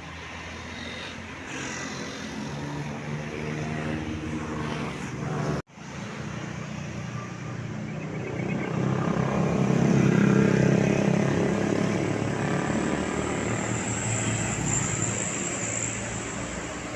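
Tour bus engine running as a bus passes close by, swelling to its loudest about ten seconds in and then slowly fading. The sound breaks off sharply for a moment about a third of the way through.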